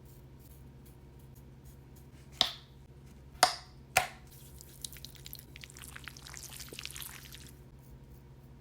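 Three sharp drip-like pops, then a dense scratchy crackle of fine clicks for about three seconds, like a dermaplaning razor blade scraping facial skin close to the microphone. A faint steady electrical hum runs underneath.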